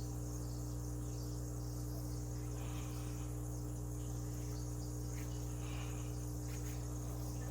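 A steady low hum together with a continuous high-pitched buzzing, unchanging throughout.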